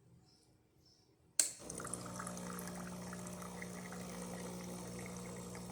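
Breville Oracle Touch espresso machine running its hot water function: after a sudden start about a second and a half in, its pump hums steadily under the sound of water pouring from the outlet. The machine is working properly after a full service.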